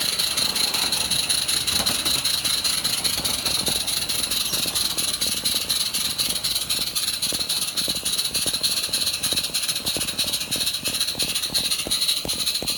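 Model locomotive running, heard from a wagon coupled close behind it: a steady high hiss with a quick, uneven rattling clatter of wheels and running gear.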